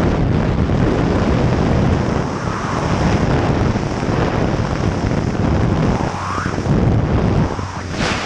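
Wind rushing through the open door of a small skydiving jump plane in flight, buffeting the camera microphone, over the plane's engine running.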